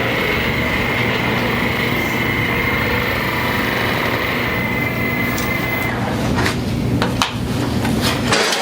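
A small electric machine running steadily with a high tone, which cuts off about six seconds in; a few sharp knocks and clicks follow.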